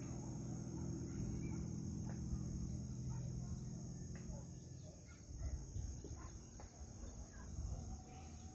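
Insects trilling in one steady high-pitched note throughout. A low hum fades out about halfway through, and faint scuffs and clicks follow.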